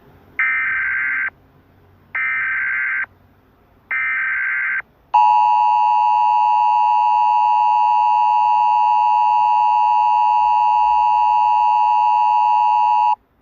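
Emergency Alert System header: three short bursts of SAME digital data tones, about a second each and a second apart, then the EAS two-tone attention signal held steady for about eight seconds before cutting off.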